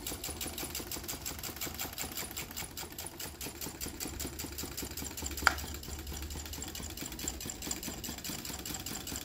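Small homemade tin-can Stirling engine running fast on focused sunlight, its piston and crank clattering in a rapid, even rhythm. A single sharp click about five and a half seconds in.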